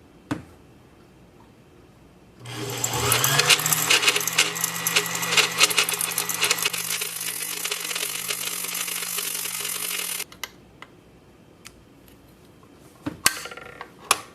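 Sewing machine motor running at speed while winding thread onto the bobbin. It spins up about two seconds in, runs steadily with a low hum under fast clicking, and stops abruptly some eight seconds later. A click comes just after the start and a few more near the end.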